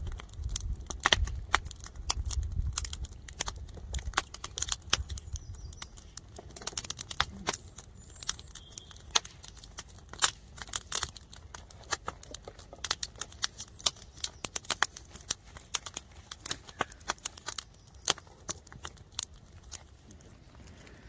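Wood campfire crackling, with irregular sharp pops and snaps from the burning logs. A low rumble runs under it for the first several seconds.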